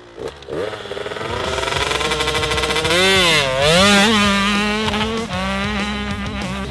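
Small two-stroke motocross bike pulling away and accelerating, its engine revving higher through the first seconds. About three seconds in the pitch dips and climbs again, then it holds a steady high note as the bike rides off.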